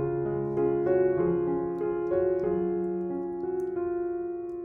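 Background piano music: a slow melody of held notes over a low accompaniment, the notes fading away near the end.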